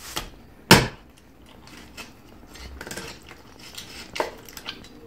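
Kitchen knife cutting raw chicken on a wooden cutting board: one sharp knock of the blade on the board near the start, then a few lighter knocks and taps.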